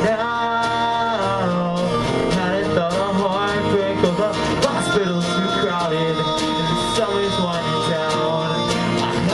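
A rock band playing live, with a voice singing over strummed guitar.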